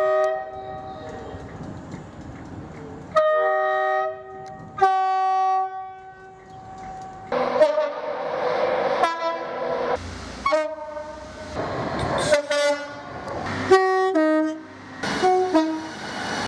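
A run of British train horn blasts, short and long, some stepping between two notes, cut together from several trains. Train running noise fills the gaps between blasts.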